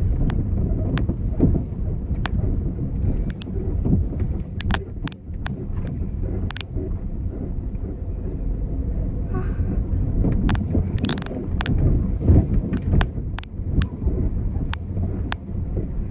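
Car driving slowly on a dirt road, heard from inside the cabin: a steady low rumble of the engine and tyres on the rough surface, with frequent sharp clicks and rattles scattered throughout.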